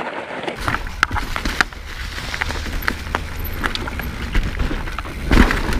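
Mountain bike descending a leaf-covered dirt trail, picked up by the on-bike camera: tyres rolling over leaves and dirt, with frequent sharp clicks and rattles from the bike. A low rumble comes in about half a second in and gets louder near the end.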